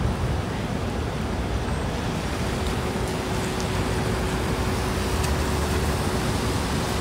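Steady city street traffic noise, a low rumble of passing vehicles, with a faint steady hum joining about two and a half seconds in.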